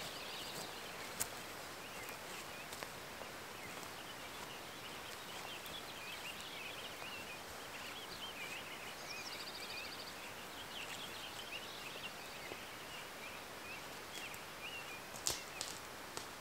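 Several songbirds singing in short warbling phrases over a steady outdoor hiss, with a rapid trill about nine seconds in. A few sharp clicks stand out, one about a second in and the loudest near the end.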